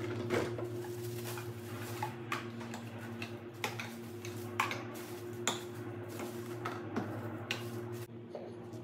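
Seasoning containers being set down and knocked against each other on a cabinet shelf: a string of irregular sharp clicks and clinks over a steady low hum.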